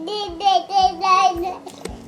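A toddler singing in a high, wavering voice, a run of short sung syllables that stops about one and a half seconds in.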